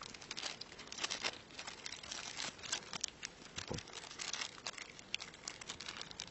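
Small clear plastic packaging bag crinkling and rustling as a fishing wobbler is unwrapped and handled, with light scattered ticks.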